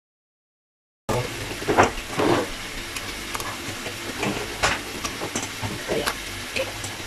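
After about a second of silence, raw chicken pieces being dropped into a wok of hot turmeric spice paste: a steady sizzle with irregular splats and crackles, and a few louder knocks as pieces land.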